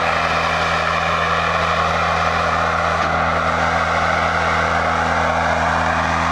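Dura Patcher spray-injection patching machine running, a steady engine hum with an even rushing of its blower air through the hose.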